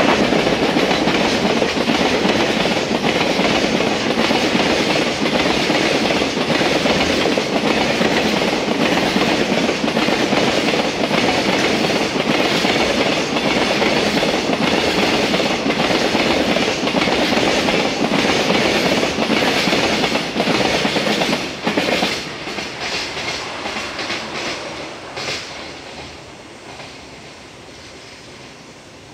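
Container freight train rolling past: the wagons' wheels rumble and clatter over the rail joints in a quick, steady run of clicks. About three quarters of the way through, the sound drops away suddenly as the last wagons go by, then fades as the train recedes.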